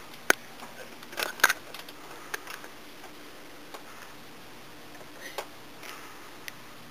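Handling noise from a handheld video camera as it is swung round: a few sharp clicks and knocks, the loudest about a second and a half in, then faint scattered ticks over quiet room tone.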